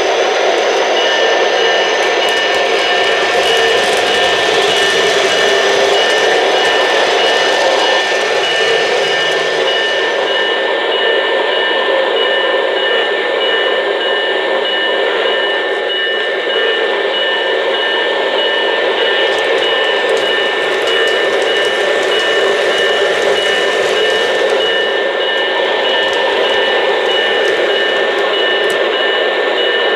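O-gauge model Alco PA diesel locomotive running on three-rail track. Its motor and wheels make a steady rushing noise, with two steady high whining tones over it.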